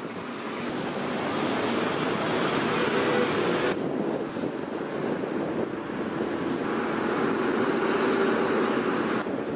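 Diesel engine of a KAMAZ-chassis truck crane running steadily, a dense rushing mechanical noise with a faint steady whine in it. The sound changes abruptly about a third of the way in.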